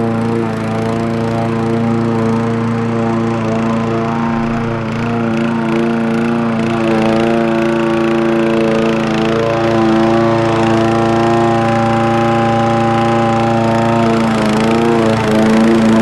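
Homemade remote-control lawnmower running steadily as it mows, with a brief dip in pitch near the end.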